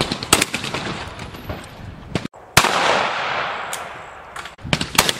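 Shotguns firing at clay targets: a few loud shots, about a third of a second in, about halfway through and two close together near the end, each trailing off in a long echo, with fainter shots between them.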